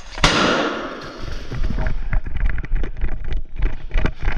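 An airsoft grenade going off: one sharp bang about a quarter second in, with a hissing, echoing tail that dies away within a second. It is followed by quick, irregular thuds of footsteps running on a hard floor.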